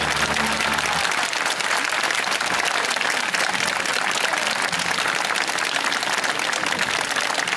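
Audience applauding with dense, steady clapping. The band's last held chord stops about a second in.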